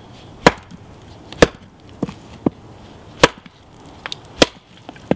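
A hatchet is driven down through a block of maple with sharp blows to split it: four loud strikes with lighter knocks between.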